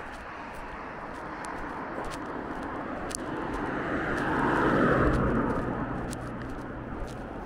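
A car drives past on an asphalt road: its tyre and engine noise swells as it approaches, peaks about five seconds in, then fades away.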